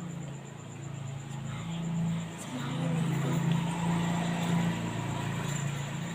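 A motor vehicle's engine running with a steady low hum, growing louder about two and a half seconds in and easing off near the end.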